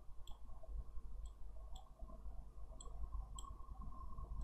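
A computer mouse clicking about five times at uneven intervals, faint against a low steady room hum.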